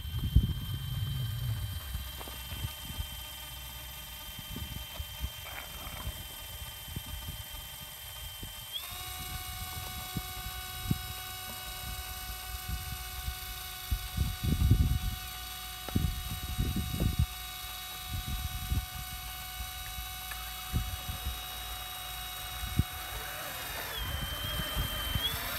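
Radio-controlled Cat 785 haul truck model's electric motors whining steadily. The whine steps up in pitch about nine seconds in and wavers near the end as the dump bed goes up. A few low thumps come through over it.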